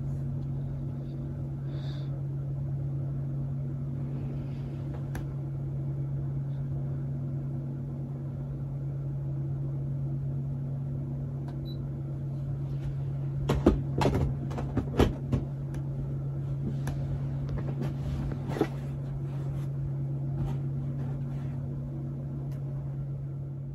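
A steady low machine hum with a few held tones. About halfway through, a cluster of sharp clicks and knocks, and one more a few seconds later.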